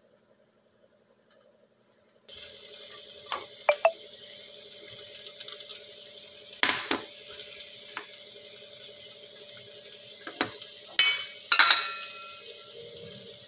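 Yam cubes frying in oil in a kadai, a steady sizzle that starts suddenly a couple of seconds in, with several sharp clinks and scrapes of a steel bowl against the pan as chopped onion is tipped in.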